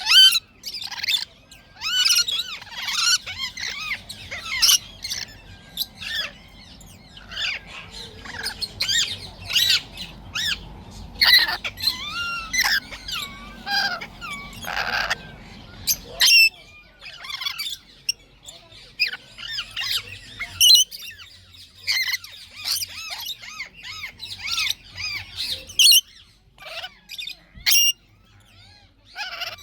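Lorikeets screeching and chattering: many short, shrill squawks and chirps overlapping in quick succession, thinning out for a few seconds a little past halfway.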